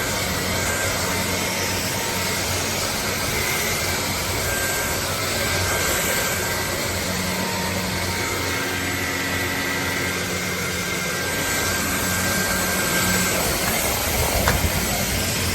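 Dreame Z30 cordless stick vacuum running steadily, its motor whirring with a rush of air, with a few light knocks near the end.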